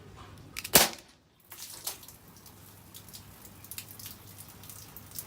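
A single sharp, loud shot from a WG 321 Glock airsoft pistol about a second in, followed by a lighter click.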